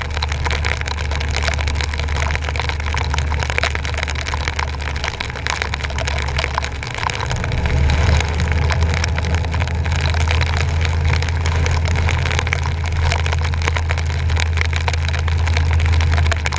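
Truck engine running with a steady low drone under a broad hiss of rain and water spray, picked up by a camera on the front bumper. The drone drops out for about a second around seven seconds in, then comes back.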